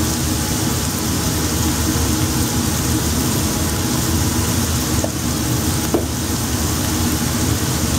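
Chopped onion sautéing in a cast-iron skillet, a steady sizzle over a steady low hum, with a couple of faint clicks about five and six seconds in.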